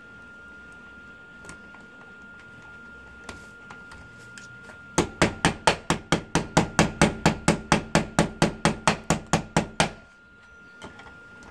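Rapid run of sharp hammer taps on a door's euro cylinder lock, about five a second for some five seconds, starting about five seconds in and stopping abruptly.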